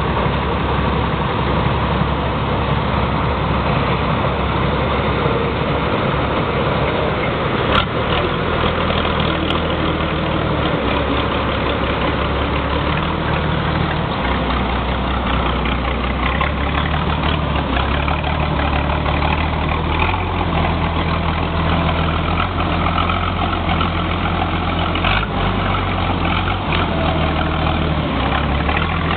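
Six-cylinder engine idling steadily with a deep, thick exhaust rumble.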